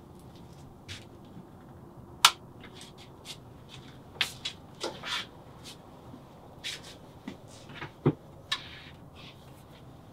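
Scattered clicks, clinks and knocks of kitchen items being handled, picked up and set down on a shelf and counter in a small room. The sharpest clink comes about two seconds in, and a duller knock comes near the end.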